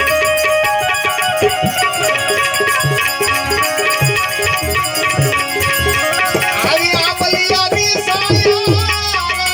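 Instrumental interlude of Gujarati devotional folk music: tabla keeps the rhythm, its bass strokes sliding in pitch, under sustained melodic accompaniment. About seven seconds in, a high wavering melody line enters with a rising glide.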